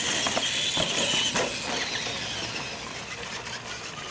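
R/C monster trucks' drivetrains whining as they race over dirt, the high whine falling in pitch over the first couple of seconds, with scattered clicks and knocks.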